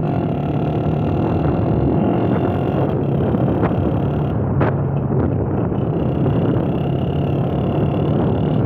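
Motorcycle engine running steadily under way, with a low, even engine note under road and wind noise.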